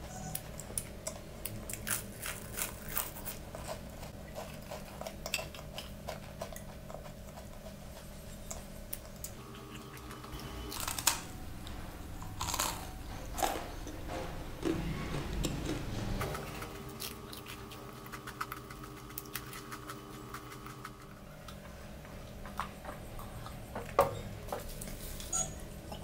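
Close-miked chewing of flaky puff pastry: scattered small crunches and mouth clicks, heaviest in the middle stretch and again near the end, over a faint steady hum.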